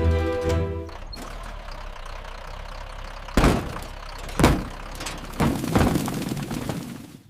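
Four heavy thumps over a steady rumbling background, after a pitched tone that fades out in the first second.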